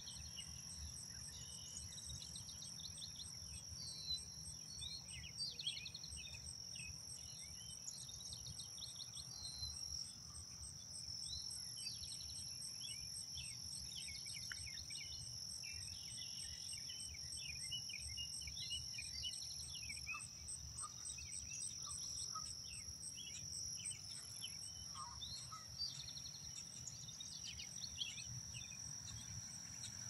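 Songbirds chirping and singing in short scattered phrases over a steady high-pitched insect drone and a rapid, even insect pulse, with a low rumble underneath.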